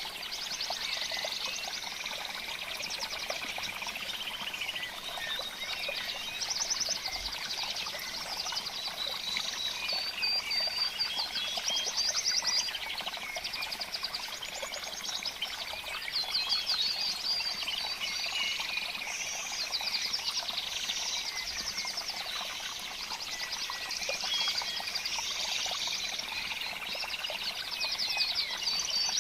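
A dense chorus of small songbirds chirping and trilling, many rapid trills overlapping without a break.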